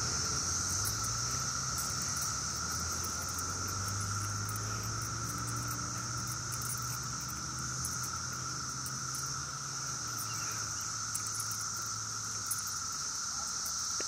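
Chorus of 17-year periodical cicadas (Brood X), a continuous deafening drone of high-pitched buzzing with no break, over a low steady hum.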